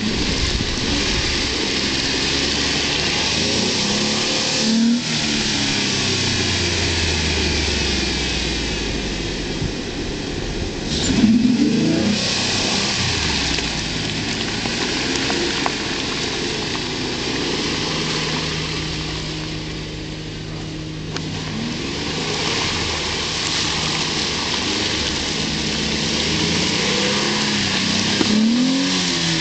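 2007 Jeep Wrangler JK's 3.8-litre V6 engine revving up and down several times as the Jeep pushes through deep mud, over a steady hiss.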